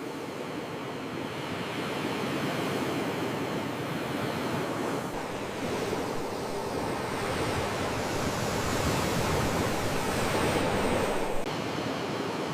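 Sea waves washing in as a continuous surf, swelling louder for a few seconds. Near the end the sound drops suddenly to a softer wash.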